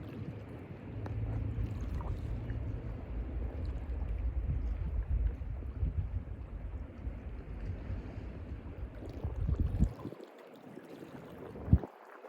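Mediterranean sea waves washing, with a heavy low rumble that drops away about ten seconds in, followed by a single thump shortly before the end.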